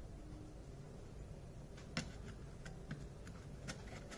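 Quiet room tone with a handful of faint, light metallic clicks in the second half as a perforated stainless-steel incense-stick cover is handled and set onto its metal base.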